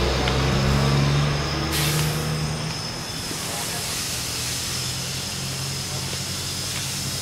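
A fire truck's engine running with a steady low hum, with a short sharp hiss about two seconds in; the hum drops away shortly after, leaving a steady rushing noise.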